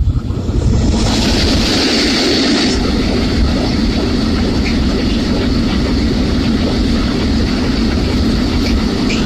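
Freight train of covered hopper wagons passing close by at speed: a loud steady rumble of wheels on rail. A brighter hiss sounds about one to three seconds in, as the locomotive goes by.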